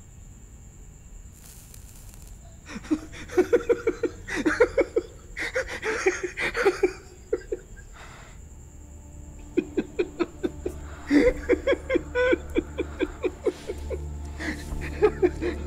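A person laughing in quick, repeated ha-ha bursts of about five a second, in two spells with a pause between them.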